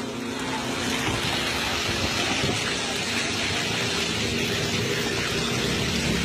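Landslide of mud and rock coming down a hillside onto a road, a steady rushing noise of sliding earth and debris.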